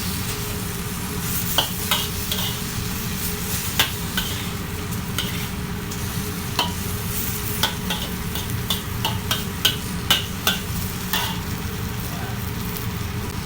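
Chicken pieces sizzling as they fry in a pan, stirred with a utensil that clacks and scrapes against the pan many times at irregular intervals.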